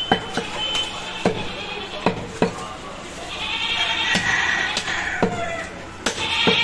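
Butcher's cleaver chopping goat meat on a block in repeated sharp strokes, with a goat bleating at length in the middle and again near the end.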